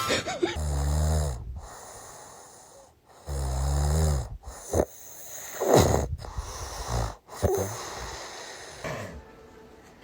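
Snoring: two long, low snores about three seconds apart, then a shorter, higher sound that rises and falls in pitch about six seconds in, growing quieter near the end.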